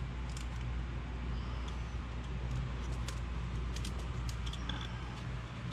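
A steady low hum with faint, scattered light clicks and clinks, typical of metal line fittings being handled.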